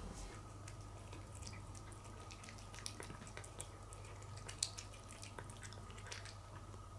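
A cat eating wet cat food from a plate: faint, irregular wet smacks and clicks of chewing and licking, one a little louder just past the middle, over a steady faint hum.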